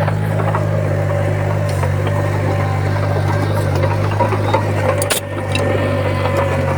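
Diesel engine of a crawler bulldozer running steadily under load, with scattered clicks and knocks and one sharp click about five seconds in.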